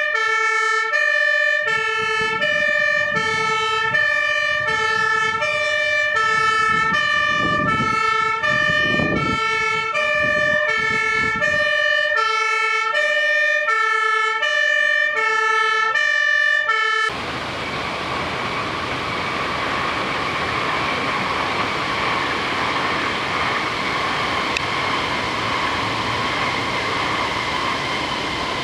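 Dutch fire engine's two-tone siren alternating between a high and a low note, each held about half a second, with the truck's engine rumbling underneath. It cuts off abruptly about 17 seconds in, and a steady rushing hiss of a fire hose jet spraying water follows.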